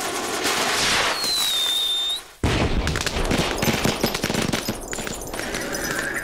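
Cartoon sound effects: a hissing sweep with a short high whistle that dips and levels off, cut off sharply, then a dense, rapid crackling rattle.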